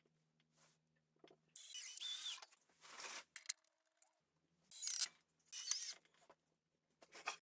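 Cordless drill running in about five short bursts, each a quarter second to a second long, its motor whine wavering in pitch.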